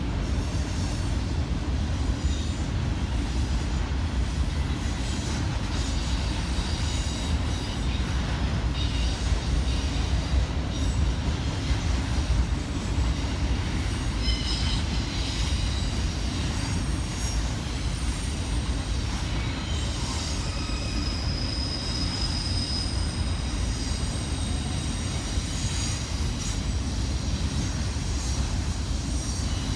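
Freight train of autorack cars rolling past, a steady low rumble of wheels on rail. Thin high-pitched wheel squeals come and go over it, most plainly about halfway through and again a little later.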